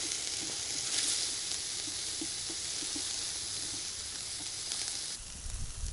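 Vegetables sizzling in a perforated stainless-steel grill wok over hot charcoal, with light knocks as a wooden spatula stirs them. The sizzling stops suddenly near the end, giving way to a low rumble.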